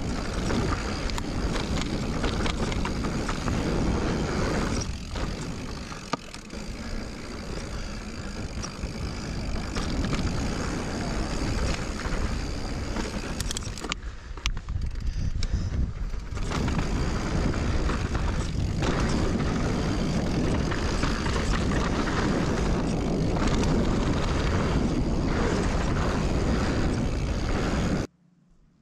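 Wind buffeting the camera microphone while a Giant Reign Advanced Pro 29 full-suspension mountain bike rolls fast over rocky dirt singletrack, with tyre noise and frequent knocks and rattles from the bike. It goes quieter for about two seconds around the middle. Near the end it cuts off suddenly.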